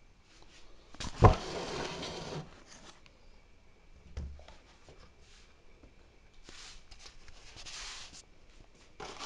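Handling noise from a laptop and its plastic packaging. A sharp knock comes about a second in and is followed by scraping and rustling. There is a dull thump around four seconds in, then more rustling bursts later on.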